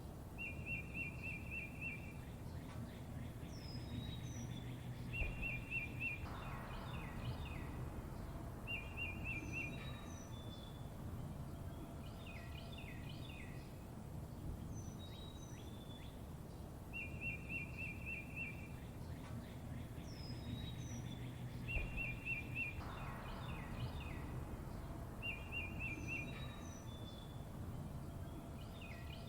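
Songbirds chirping and calling over a low steady background rumble: short buzzy trills, high whistles that fall in pitch, and quick chirps. The same set of calls repeats about every 16 seconds.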